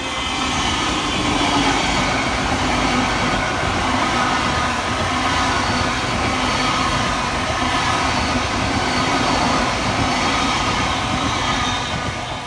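Great Western Railway Class 802 bi-mode train passing at speed close by: a loud, steady rush of wheels on rail with a hum of steady tones through it. It drops away near the end.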